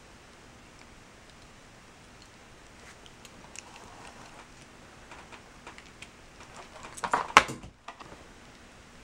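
Light clicks and taps as a capuchin monkey handles and gnaws a small Hot Wheels toy car. They are sparse at first and grow into a louder cluster of rapid clicks about seven seconds in.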